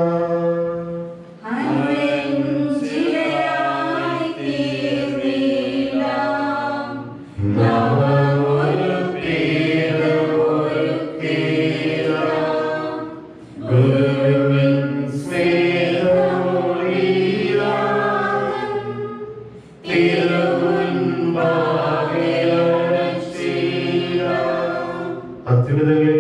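A choir singing a liturgical hymn in four long phrases of about six seconds each, with short breaths between them.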